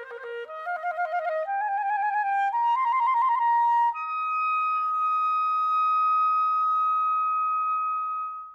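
Ridenour Lyrique clarinet playing a quick, fluttering figure that climbs step by step. About four seconds in it leaps to one long high note, held steady until it is cut off at the end of the phrase.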